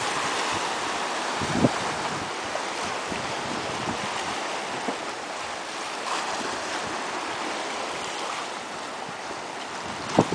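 Steady rushing hiss of wind and small choppy waves on open water, with a short knock about one and a half seconds in.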